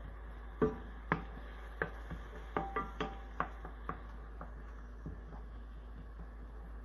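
Wooden spoon knocking and scraping against a nonstick frying pan while stirring onion and garlic frying in oil. The knocks are irregular, about a dozen, mostly in the first four seconds, and a few of them make the pan ring briefly.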